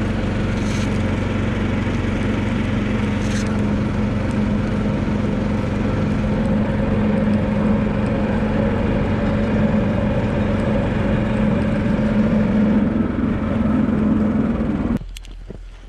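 A vehicle engine running steadily at an even speed, with a strong low hum, that cuts off abruptly about a second before the end.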